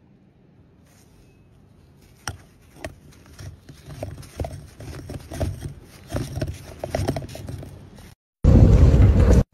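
Snow crunching and scraping as a gloved hand packs it into a bowl-shaped snowball mould, in irregular scrapes with a few sharp clicks. Near the end a loud rush of noise lasts about a second.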